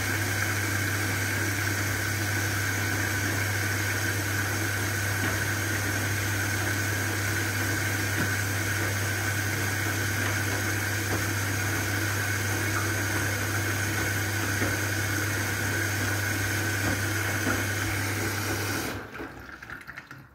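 Front-loading washing machine running mid-wash: a steady motor hum with a thin whine over water washing around the drum. It stops suddenly near the end, leaving drips.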